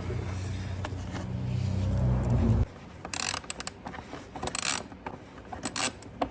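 A steady low hum that grows louder and stops abruptly about two and a half seconds in, followed by a 5/16 ratchet wrench clicking in short bursts of strokes as it tightens the motorcycle turn indicator's mounting bolt.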